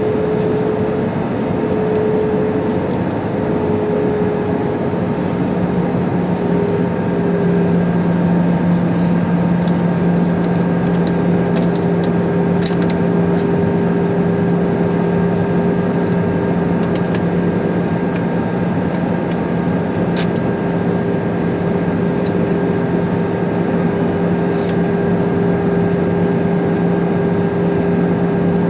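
Airbus A320 cabin noise heard from a window seat during the approach: a steady rush of air with the hum of the CFM56 engines. A lower, steadier engine tone sets in about five seconds in, and there are a few faint clicks midway.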